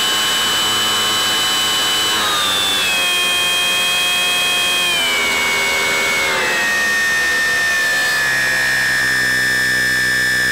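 Small electric model-plane motor and propeller whining steadily in flight, the whine dropping in pitch in several distinct steps as the throttle comes down.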